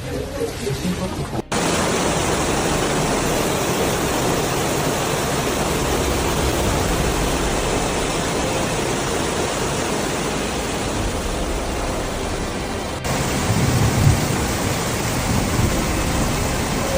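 Torrential rain pouring down, a dense steady hiss, with low rumbling in the last few seconds.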